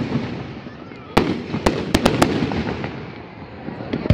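Aerial fireworks going off: one sharp bang about a second in, then four more quick reports within the next second, fading away afterwards.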